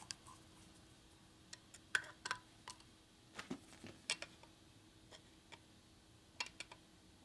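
Faint, irregular small metal clicks and ticks of a screwdriver turning down the mounting screws of an ignition module in an aluminium engine cover, over a faint steady hum.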